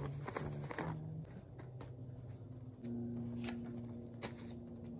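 Paper banknotes being counted by hand: bills flicked and shuffled, a string of short sharp papery flicks. A low steady hum comes in about three seconds in.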